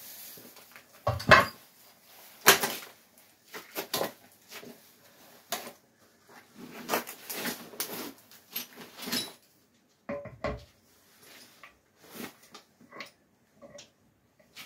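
Irregular metal clunks, knocks and scrapes as a Mazda MX-5 gearbox is handled and offered up to an engine's adaptor plate, with two sharp knocks in the first few seconds and a busy run of clatter about seven to nine seconds in.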